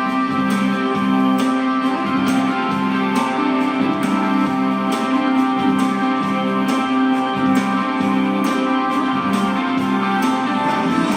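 Live rock band playing an instrumental passage. Guitars and keyboard sound over a bass line of short, evenly repeated notes, with regular drum hits throughout.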